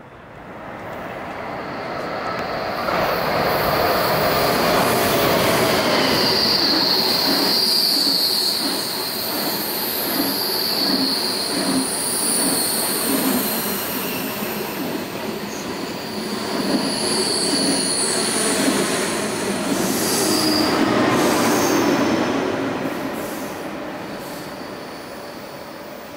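A KTX high-speed trainset running past on steel rails: the rumble builds over a couple of seconds, holds while the cars go by with a high-pitched wheel squeal and a regular clatter of wheels over the rail joints, then fades as the train pulls away near the end.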